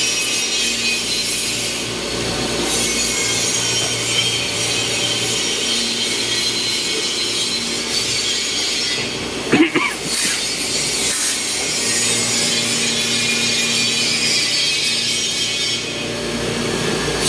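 CNC milling machine cutting a workpiece: a steady hissing cutting noise over a constant machine hum, with a brief louder burst about ten seconds in.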